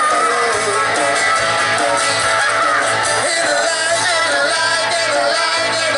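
A live rock 'n' roll band playing through amplifiers: a male voice sings over electric and acoustic guitars.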